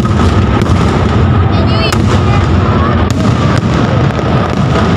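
Large aerial fireworks display: a continuous rumble of shells bursting, with several sharper bangs standing out.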